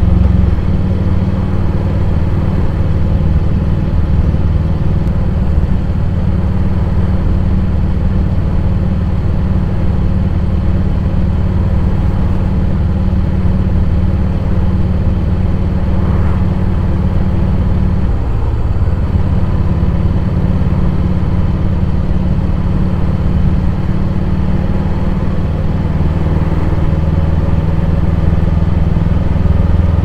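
Honda X-ADV 750's parallel-twin engine running at a steady cruise, heard through a helmet-mounted camera, with a brief dip in the engine note about two-thirds of the way through.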